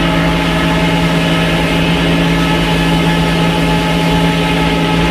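Sawmill machinery running steadily: an engine hum that holds one pitch, with no rise or fall.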